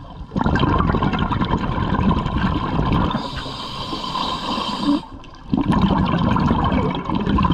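Scuba diver's breathing through a regulator underwater: exhaled bubbles rushing and gurgling, with a short lull about five seconds in before the next breath's bubbles.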